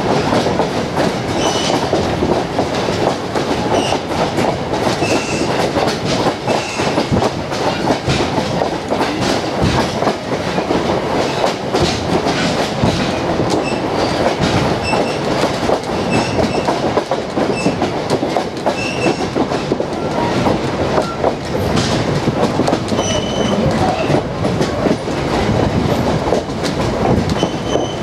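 Vintage railroad passenger coach riding over the track behind a steam locomotive, heard aboard: a steady loud rattle and clatter of wheels and car body, with short high squeaks now and then.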